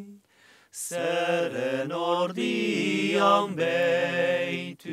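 Three men singing a traditional Basque song a cappella in harmony, in Basque, with long held notes. There is a short pause with an intake of breath about a second in, and another brief break near the end.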